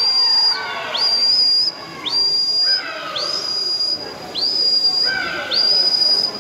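A whistle blown by spectators to cheer on a butterfly swimmer, in even blasts about once a second, six times. Each blast slides sharply up to a high, held note. Shouts of encouragement sound between the blasts.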